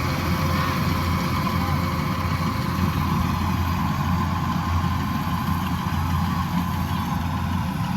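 A large engine running steadily at a constant speed, with a deep hum and a steady higher whine.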